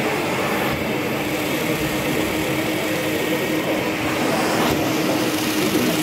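Wet carpet extractor's vacuum motor running steadily with a constant hum while its wand's floor tool sucks spilled coffee out of a carpet.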